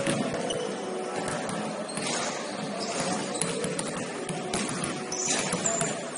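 Basketball game sounds in a large gym: a ball bouncing on the court among scattered short knocks, over a steady hall ambience.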